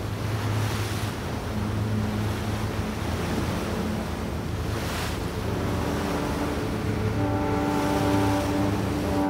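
Water churning and rushing in a ship's wake, with wind and a steady low engine hum under it. About seven seconds in, a sustained deep horn-like chord of several steady tones comes in and holds.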